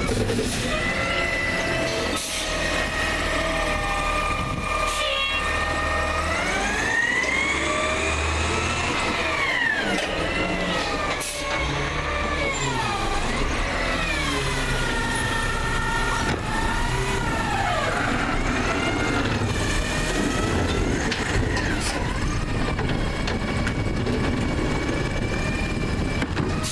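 McNeilus ZR automated side-loader garbage truck on a CNG Peterbilt 320 running while its arm works recycling carts: the engine and hydraulic whine rise and fall in pitch several times as the arm grabs, lifts and lowers carts, with a few short knocks.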